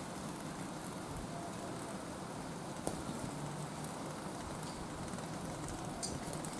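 Oga-binchotan charcoal burning in chimney starters heated by alcohol stoves: a steady hiss of flame, with a sharp crackle about three seconds in and another near the end.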